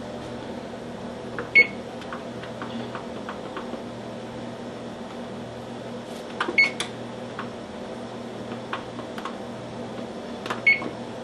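GE range oven control panel beeping as its touch-pad buttons are pressed to set the bake temperature and timer: a short high beep about a second and a half in, two close together about six and a half seconds in, and another near the end, with faint button clicks between them. A steady low hum sits under it all.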